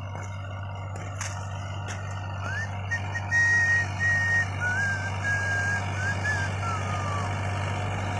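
Sonalika 740 DI tractor's diesel engine running steadily under load, pulling a tillage implement: a low, even hum. From about two and a half seconds in, a high, wavering whistling tone comes and goes over it.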